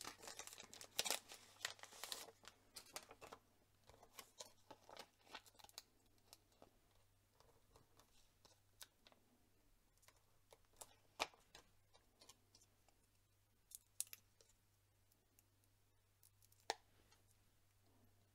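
Quiet handling of paper cardstock and a die-cut label: rustling and scraping for the first few seconds, then scattered small clicks and taps, with a few sharper ones in the middle and near the end.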